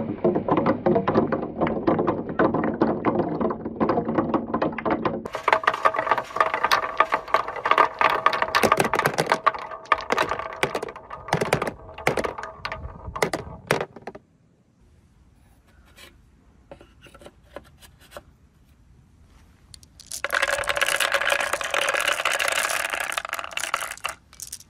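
Marble-run balls rolling and clattering down wooden ramps and a board studded with wooden blocks, a dense stream of clicks and rattles as they knock into each other and drop into a plastic bin. About 14 seconds in it goes quiet except for a few clicks, then near the end comes a steady rolling rush of many balls running down a wooden zigzag chute.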